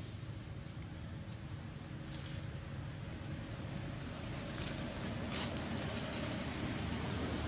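A low, steady engine rumble that grows slightly louder toward the end, with a brief rustle about five seconds in.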